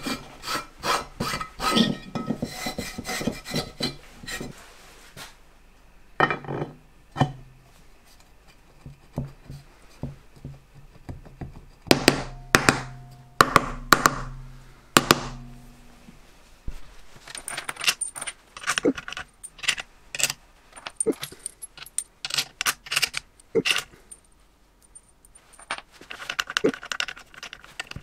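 Scrubbing on an aluminium engine cover for about four seconds, then scattered metal clicks and knocks as the aluminium casing parts of a two-stroke moped engine are handled and its cover screws set, with a quick run of clicks near the end.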